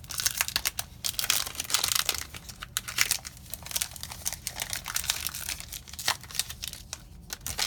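Magic: The Gathering booster pack wrapper being torn open and crinkled by hand, with irregular crackling and rustling throughout.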